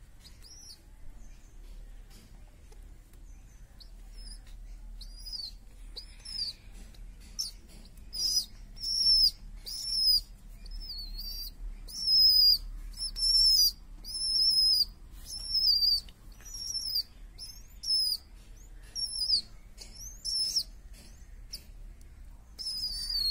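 Baby pigeon (squab) making begging calls while being hand-fed: a string of short, high-pitched squeaky peeps, each rising then falling, about one a second. The calls start faint and grow loud from about eight seconds in.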